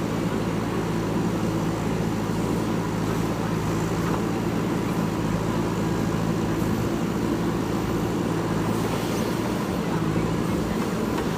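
Diesel engine of a JCB 3DX backhoe loader running steadily, holding an even pitch throughout.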